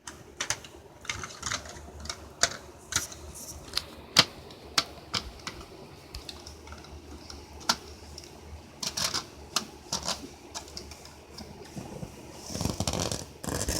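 Irregular sharp clicks and knocks from a smoke alarm board being handled, roughly one to three a second, with a denser stretch of rustling and knocking near the end.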